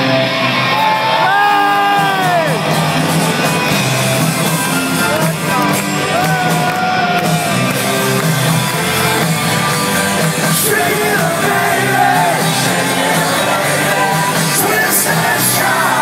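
Live rock band playing with singing, heard from within a stadium crowd, with shouting from the audience over the music.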